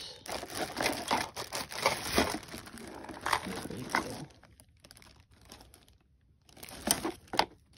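Clear plastic bag crinkling and cardboard box rustling as a packaged wind chime is handled and pulled out. The sound is dense for the first few seconds, goes quieter, then gives two sharp clicks near the end.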